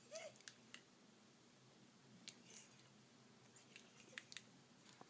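Near silence with faint scattered clicks and wet smacks from a baby's mouth, and one brief faint squeak about a quarter second in.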